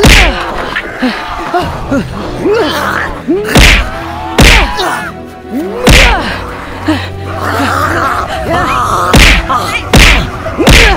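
A run of heavy thuds and whacks, about seven loud hits spaced roughly one to three seconds apart, over background music with voices between them.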